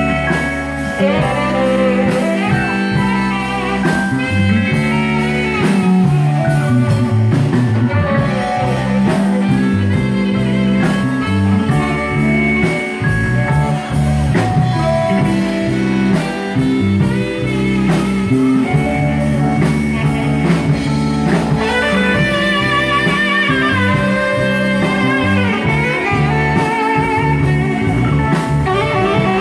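Live band playing a slow blues-soul ballad with no vocals: saxophone over electric guitars, keyboard and drums, with a steady beat. In the last third a lead line is played with a strong vibrato.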